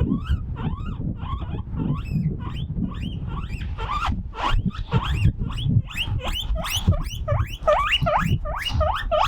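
Guinea pig wheeking: a fast run of short, rising squeals, a few a second, growing louder and closer together about four seconds in. It is calling out because it has been left alone. Wind rumbles on the microphone underneath.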